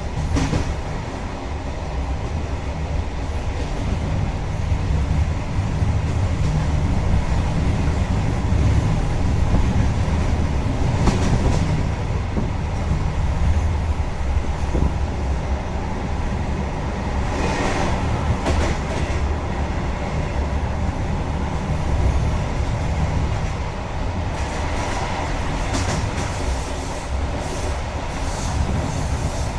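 InterCity train running on the track with a steady low rumble, and a few sharp clacks of wheels over rail joints and points, more of them near the end.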